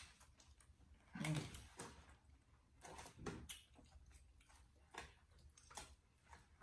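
Quiet eating sounds: light clicks and scrapes of a plastic fork in a foam takeout box, with a short hummed "mm" about a second in.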